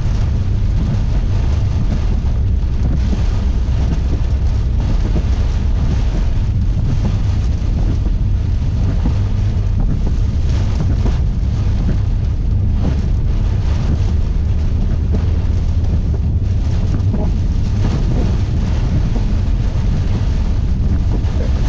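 Strong storm wind and rain buffeting a vehicle and the microphone near a tornado: a loud, steady low rumble with gusts, no speech.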